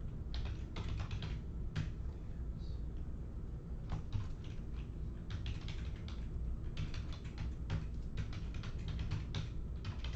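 Typing on a computer keyboard: short bursts of quick key clicks with brief pauses between them, over a low steady hum.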